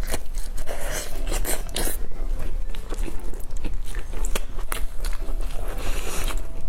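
Close-miked eating of pork knuckle: biting and chewing, with many irregular sharp mouth clicks and smacks.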